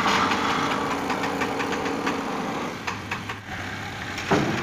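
A machine runs with a steady hum while the chains and the steel truck chassis rail hanging from them clank and knock lightly. A sharper metal knock comes near the end and is the loudest sound.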